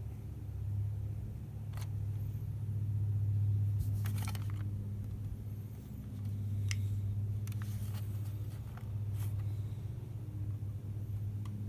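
A steady low hum that swells and fades slightly, with a few light clicks scattered through it.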